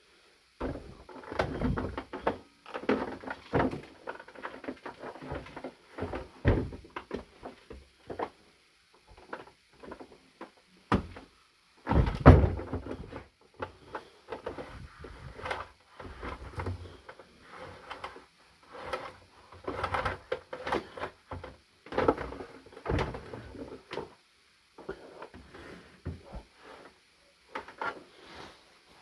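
Irregular knocks, clicks and scrapes of a plastic vacuum cleaner casing being handled and taken apart, with the loudest knock about twelve seconds in.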